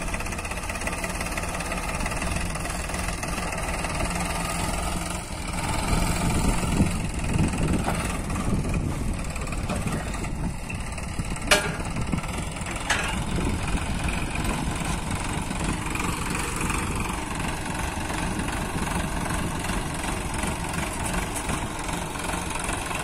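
Sonalika tractor's diesel engine running steadily under load as it drags a soil-scraping karaha through loose earth, with a single sharp click near the middle.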